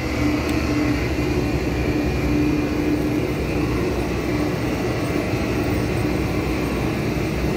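Daikin air-conditioning unit running: an even rush of air from its fan with a steady low hum from the motor and compressor.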